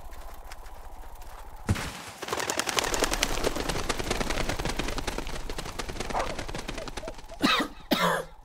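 Cartoon sound effects: a single sharp bang, then a dense, rapid crackling clatter for about five seconds, ending in two short gliding cries.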